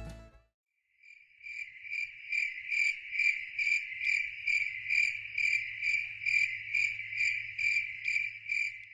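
A cricket chirping steadily, about two chirps a second, fading in about a second in.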